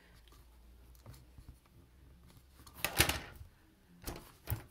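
Handling noise close to the microphone: a loud bump with a brief rustle about three seconds in, then two lighter knocks near the end, over a faint low hum.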